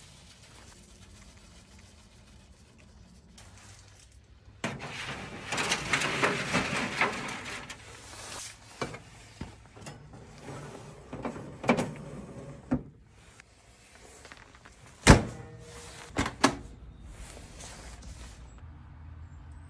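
Handling noises from a metal smoker: a few seconds of rustling and scraping, then a series of sharp metal knocks and clunks from its door and racks, the loudest about fifteen seconds in, with two more just after.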